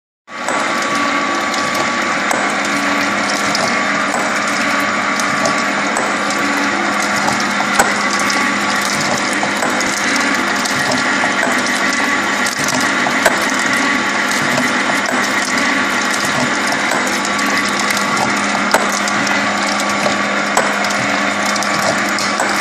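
Sunderland gear planer running as its rack-type cutter planes the teeth of a spur pinion under a stream of cutting oil. The mechanical running noise of the gearing and mechanism is continuous, over a steady hum, with a sharp click now and then.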